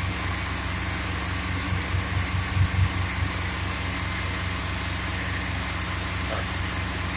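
Dodge 318 V8 in a 1969 Dodge A100 van idling steadily as it warms up after a cold start.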